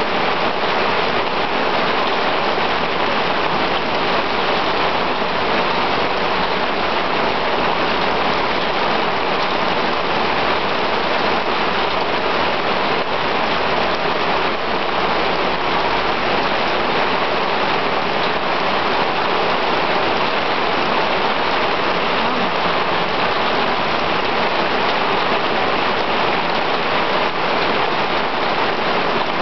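Heavy downpour of rain pelting a cobbled street: a loud, steady, unbroken hiss of rain.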